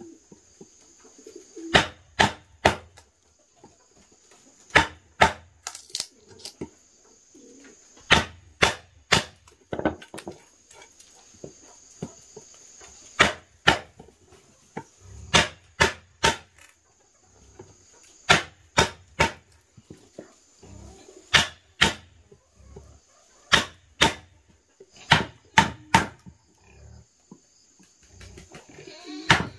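Repeated sharp knocks struck irregularly, often in quick twos and threes, each with a dull low thud, like blows from a hand tool. A steady high-pitched drone runs underneath.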